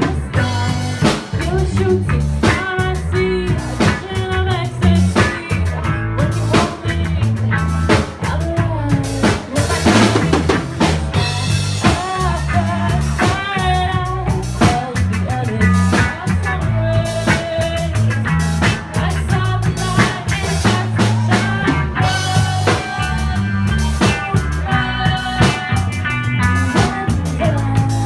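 Live rock band playing loudly: drum kit with rimshots, bass and electric guitar.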